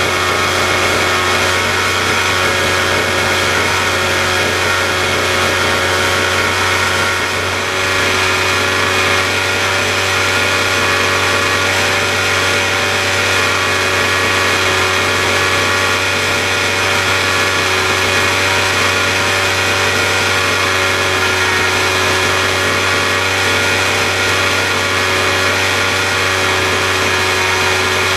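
Small petrol lawn mower engine running steadily at a constant high speed on a test rig, with one brief dip in level about seven seconds in.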